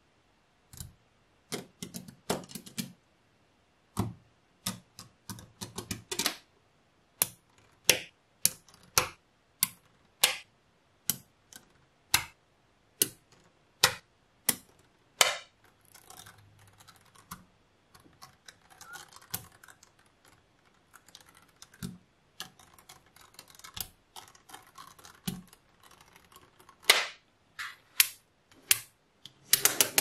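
Small magnetic balls clicking as slabs and strands of them snap together, in sharp separate clicks. About halfway through, the clicks give way to a fainter, denser clatter as a strand of balls is laid over the block, and sharp clicks return near the end.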